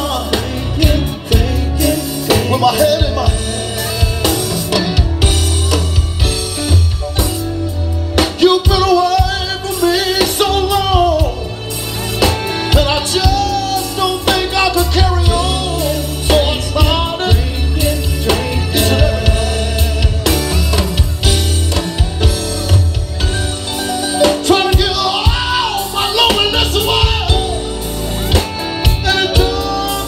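A live band playing with a male lead singer over electric guitar, bass, drums and keyboard, with a steady beat and a strong bass line.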